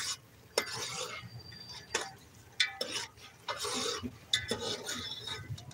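Food being stirred in a cooking pot: a utensil scraping through it in short strokes, with about five sharp knocks of the utensil against the pot.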